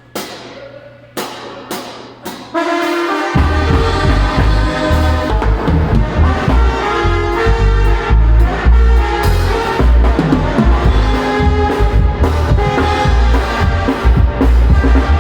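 A live banda, a brass band with drums, playing. A few separate drum hits come first. About two and a half seconds in the full band comes in, with brass horns over a heavy low bass line and drums.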